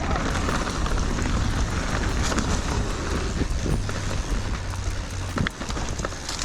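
Electric mountain bike being ridden over a rough snowy trail: steady rushing tyre and wind noise with a low rumble from wind on the microphone, and scattered sharp knocks and rattles from the bike over bumps.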